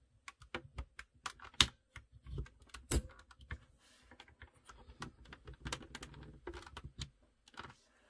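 Irregular sharp plastic clicks and knocks as a key puller grips and works the up-arrow keycap off a Corsair K63 mechanical keyboard until the keycap pops free of its switch.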